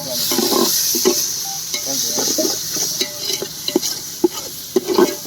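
Onion, garlic, ginger and ground-spice masala sizzling in hot oil in a pan while a spatula stirs and scrapes it, with short scraping clicks; the sizzle is loudest in the first couple of seconds and then eases.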